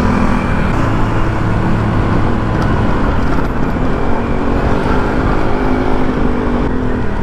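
Honda Click 150 scooter's single-cylinder engine running while riding, its pitch shifting slightly, under heavy wind noise on the microphone.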